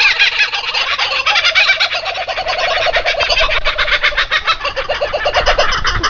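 Nestling birds giving rapid, continuous begging calls while the parent feeds them: a dense run of short chirps, many a second, with a lower run of notes through the middle.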